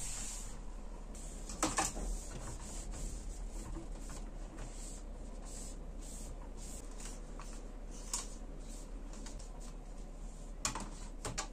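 Handling noises at a desk: rubbing and rustling with a few light knocks, the loudest about two seconds in and a cluster near the end.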